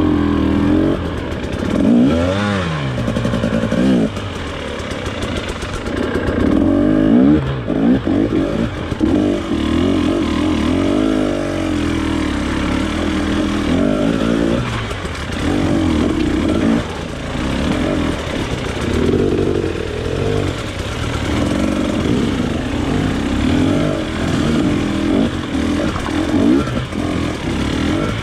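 Off-road trail motorcycle engine revving up and down over and over as the throttle is opened and closed.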